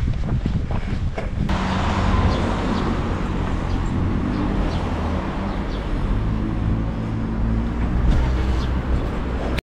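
Footsteps on pavement, then a steady, low, loud hum of a motor vehicle engine running close by, over street noise.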